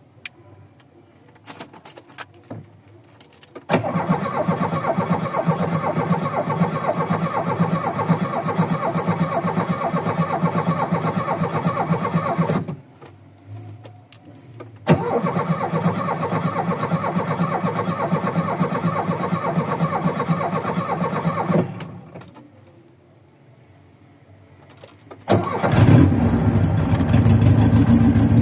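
VW Voyage's carbureted four-cylinder engine on a cold start after sitting for days. A few faint clicks come first. The starter cranks for about nine seconds without the engine catching, then cranks again for about seven seconds. Near the end the engine fires and runs rough, typical of its worn parts and poor carburettor.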